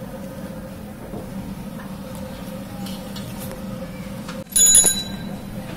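A metal rod knocks against the rim of an aluminium pot of syrup about four and a half seconds in: a short, loud metallic clang that rings for about half a second, over a steady low rumble.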